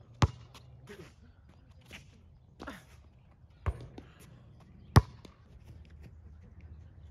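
A basketball striking the hard outdoor court and hoop in three sharp smacks, the loudest about five seconds in, as a shot goes up.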